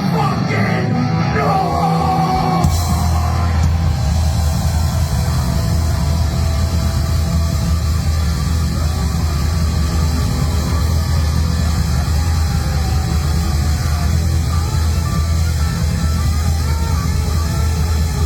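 Live heavy rock band playing loud, with a thinner pitched opening before the full band comes in about three seconds in, with heavy bass and cymbals.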